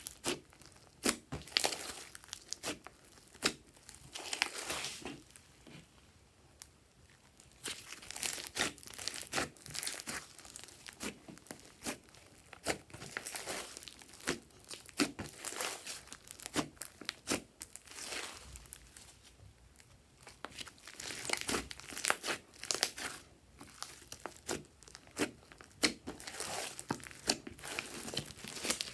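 Hands squeezing, pressing and stretching a large mass of slime, giving dense irregular clicks, pops and crackles, with two short quieter spells where the handling slows.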